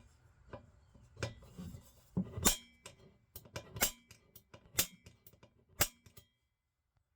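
Sharp metal taps and clinks on exhaust parts, about one a second, each with a brief ringing tone. The sound cuts off abruptly near the end.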